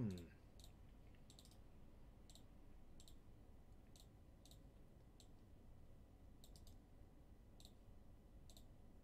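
Faint, irregular clicks of a computer mouse and keyboard, about a dozen, some single and some in quick doubles or triples, as names are copied and pasted into a spreadsheet.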